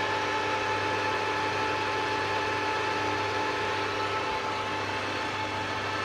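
Colchester Bantam centre lathe running, giving a steady mechanical hum with a constant whine.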